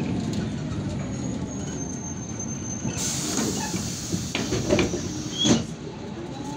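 Cabin noise inside a MAN Lion's Classic city bus slowing into a stop: a low drone of engine and road, a thin high brake squeal about two seconds in, then rattling knocks and one louder sharp clatter near the end.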